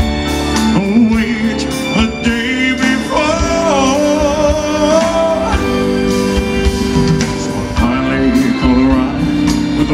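Live band playing a country-rock song, led by electric guitar, with a long wavering held note about three to five seconds in.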